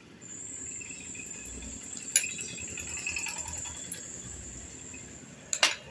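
A kitchen utensil clicking against a dish while cream is spread over fried bread slices: a sharp click about two seconds in and a louder pair near the end, over a steady high-pitched whine.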